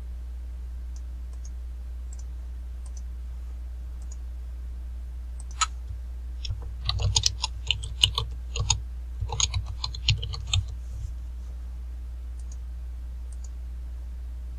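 Typing on a computer keyboard: a quick run of key clicks starting about six seconds in and lasting about five seconds, with a few faint clicks before and after, over a steady low hum.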